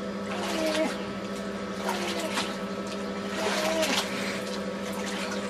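Water splashing and sloshing in a small hot tub as a baby is moved about in it, in three or four swells, over a steady low hum from the tub's pump. A few soft short vocal sounds come through.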